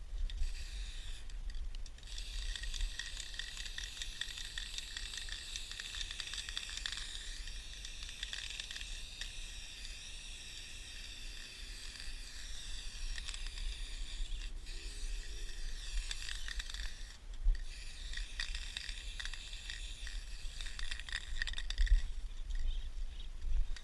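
Aerosol spray paint can hissing in long bursts against a train car's metal side, with short breaks between passes. A low rumble runs underneath, and a couple of low knocks come near the end.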